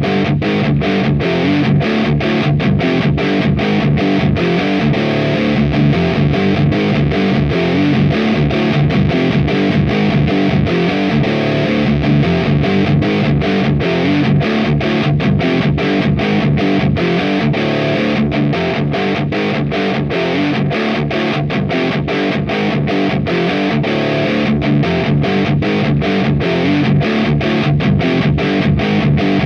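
Electric guitar played through an AMT Bricks R/S Lead tube preamp with heavy, high-gain distortion, chugging a fast, tightly muted metal riff with sharp stops many times a second.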